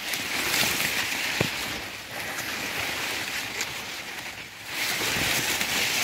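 Maize leaves rustling close to the microphone: a hiss that rises and eases off twice, with a light click about one and a half seconds in.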